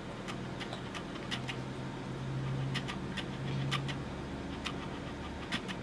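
Small wet clicks and squelches, irregular and close together, from hands squeezing and pulling at sticky cornstarch-and-water slime. A low steady hum sits underneath for a few seconds in the middle.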